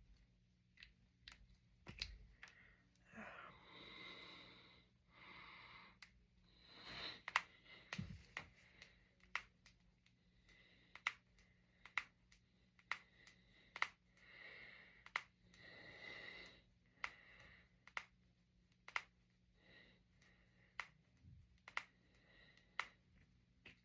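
Finger joints and knuckles cracking: a long run of sharp single pops, about one or two a second, with a few soft breaths in between.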